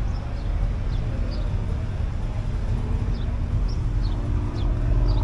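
Shelby Cobra replica's engine running at a steady low idle, a deep even rumble with no revving. Birds chirp faintly over it.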